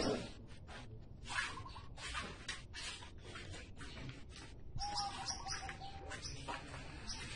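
Faint birds chirping in quick, repeated short calls, with a held whistled note about five seconds in. A single thump comes at the very start.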